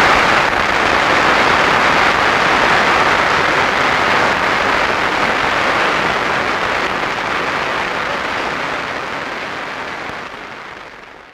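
A large hall full of delegates applauding, a steady dense clatter of many hands that slowly dies down over the last few seconds.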